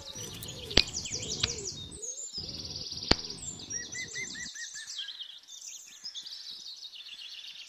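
Bird chirps and trills repeating rapidly and continuously. A low background layer cuts out about halfway through, and two sharp clicks come at about one second and three seconds in.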